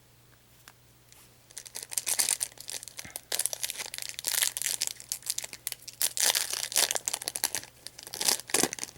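Foil trading-card booster pack wrapper being crinkled and torn open, a dense run of sharp crackling that starts about a second and a half in and goes on until near the end.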